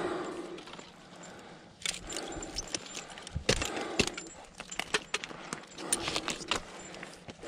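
Climbing and rigging hardware clinking: irregular light metallic jingles and clicks, with a couple of sharper knocks about halfway through.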